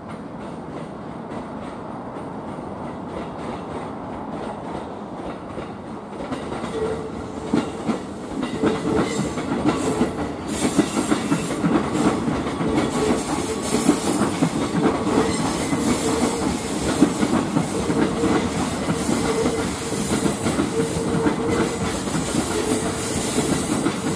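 KiHa 110-series diesel railcar pair running toward the listener, getting louder from about a third of the way in. Its wheels clatter over rail joints and pointwork, and a steady tone sounds beneath the clatter.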